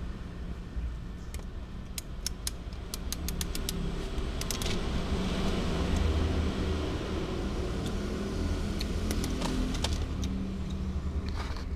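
Scattered sharp clicks and rattles of dry cat kibble being knocked about as a toy chick is moved on a plastic tray, over a steady low hum.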